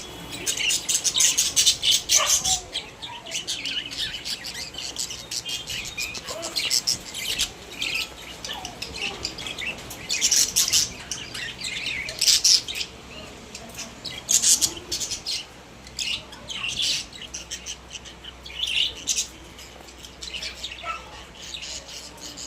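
Pet budgerigars chirping and chattering in quick runs of high chirps and squawks, busiest in the first couple of seconds and again at several points through the middle.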